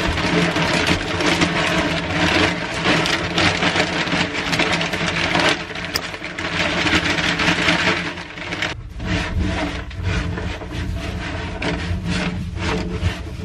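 Dry wood-chip reptile bedding pouring from a plastic bag onto a growing pile: a steady crackling rustle of chips sliding and falling, with the bag crinkling. After a short pause, a hand spreads and rakes the loose chips.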